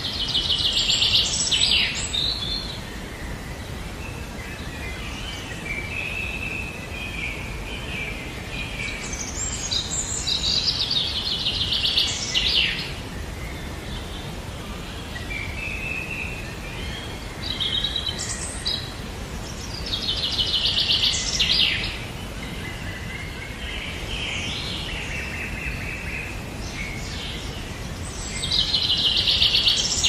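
A songbird singing phrases of rapid trilled notes, four of them, each a few seconds long, over a steady noisy outdoor background.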